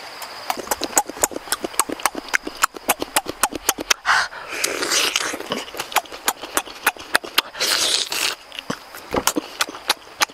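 A person chewing squid with open-mouthed, wet smacking: rapid clicks several times a second, broken twice by longer sucking or slurping hisses, about four seconds in and near eight seconds.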